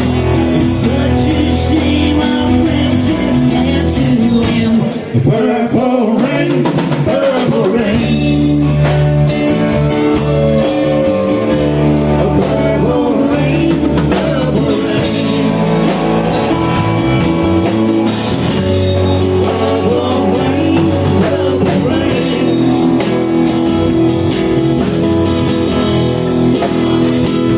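A band playing live rock-blues music, with a drum kit, guitar and singing.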